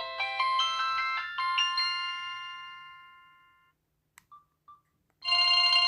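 Samsung SM-B312E phone playing a ringtone through its speaker: a quick rising run of chime-like notes ending on one long note that fades away. After a short silence come a click and two short beeps, and a new ringtone starts loudly near the end.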